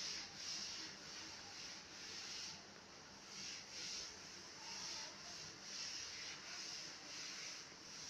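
Soft rubbing swishes close to the microphone, repeating about one to two times a second.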